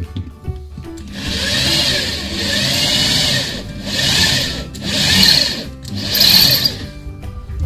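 Corded electric drill boring into very hard ceramic wall tile, the bit grinding against the tile. It runs in about four stretches, each a second or more long, with short breaks between them.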